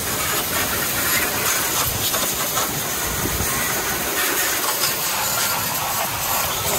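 Steady hiss of a water spray jet washing down the end of a solar water heater's tank and its tube trough.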